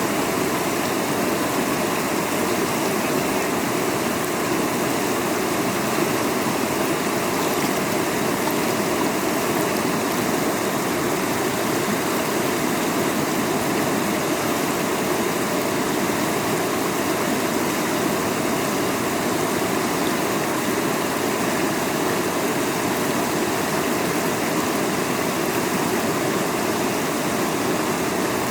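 Steady rushing of river water, an even unbroken roar with no pauses.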